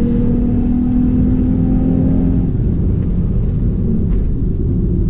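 Car engine, the 3.6-litre Pentastar V6 of a 2019 Dodge Charger, running steadily under a heavy low rumble; its note drops a little about halfway through.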